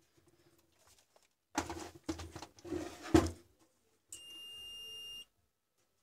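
A small desktop UPS being turned over and set down on a wooden bench, with rubbing and a few knocks, the loudest about three seconds in. Then the UPS gives one steady high beep about a second long as its power button is pressed and it switches on.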